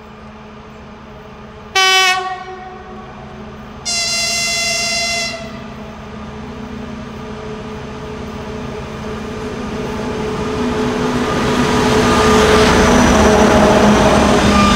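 Diesel locomotive sounding its horn twice in greeting, a short sharp blast about two seconds in and a longer one about four seconds in. Its engine hum and the rolling of a container freight train then grow louder as it passes close by.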